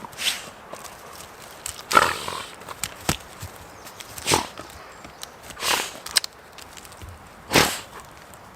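A dog huffing and snorting: about six short, breathy sounds at irregular intervals.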